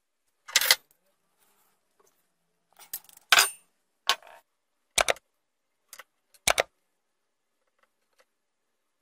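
Long steel bolts with nuts clinking against each other and knocking on a wooden workbench as they are handled and set down: a handful of sharp metallic clinks spread over several seconds.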